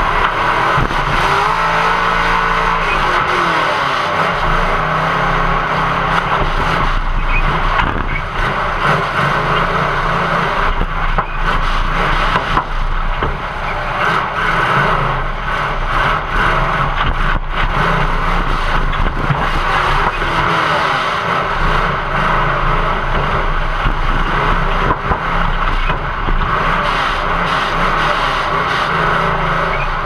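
Demolition derby car's engine running hard and revving, heard from inside the stripped cab, with scattered knocks and metal scrapes.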